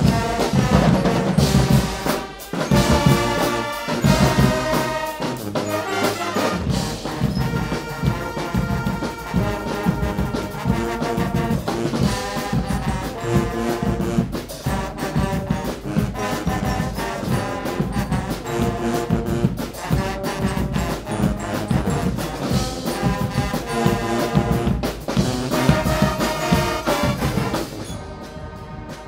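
Guggenmusik carnival band playing loudly: massed brass (trumpets, baritone horns and sousaphones) over a drum kit, bass drum and struck cymbals, with steady drum strokes under the brass chords. The music drops to a quieter passage about a second before the end.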